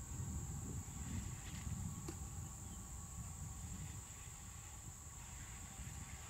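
Insects droning steadily at a high pitch, over a low rumble that eases after about four seconds; a single click about two seconds in.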